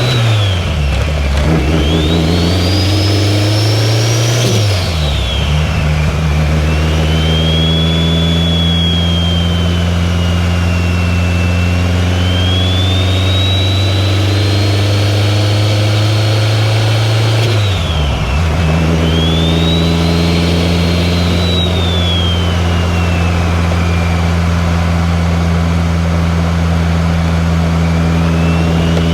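2003 Subaru WRX's turbocharged flat-four engine while driving. The revs drop sharply near the start, climb, drop again about five seconds in and dip around eighteen seconds in, as at gear changes or lifting off, and otherwise hold a steady cruise. Over the engine, a high whistle rises and falls several times.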